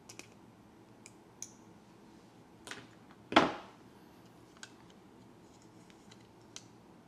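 Small metallic clicks as a steel extension spring is unhooked with needle-nose pliers from a plastic release-handle assembly, then a sharp clack about three and a half seconds in, the loudest sound, and a few light taps of plastic parts being handled.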